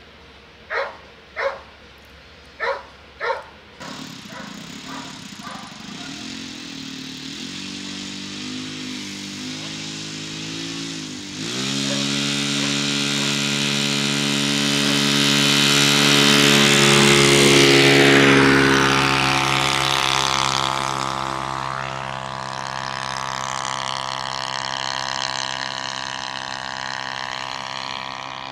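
A dog gives four short barks, then the engine of a model tow plane starts and idles. About twelve seconds in it opens to full throttle for the take-off run, is loudest as it passes with its pitch falling, and then drones on steadily as the plane climbs away towing a sailplane.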